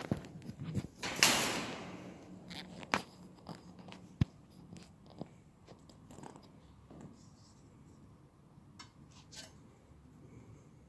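Paper being handled on an etching press bed: a loud swish a little over a second in, then scattered light taps and clicks.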